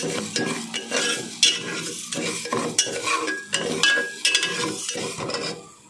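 A steel ladle stirs and scrapes split moong dal as it fries in oil in the bottom of a metal pressure cooker. It makes repeated scraping strokes with short metallic squeaks, then eases off near the end.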